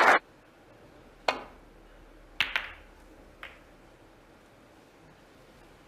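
Snooker balls clicking: one sharp click about a second in as the cue strikes the cue ball, then a close double click a second later as it hits the balls in the pack, and a fainter click after that. Applause cuts off at the very start.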